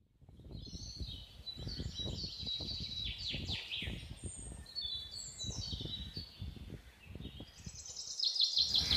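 Small birds chirping and trilling in several short phrases over a low, uneven background rumble. The birdsong dies away in the last few seconds.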